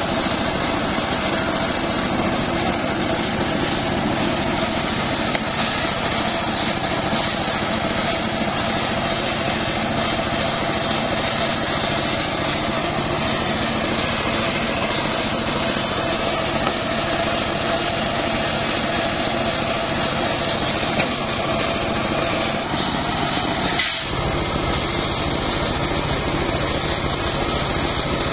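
Large sawmill circular saw running steadily while a mahogany log is fed through and cut into a beam, with a brief dip in the sound about four seconds before the end.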